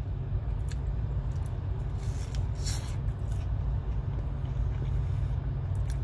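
Low, steady rumble of an idling vehicle engine heard from inside the cab, with a brief hiss about two and a half seconds in.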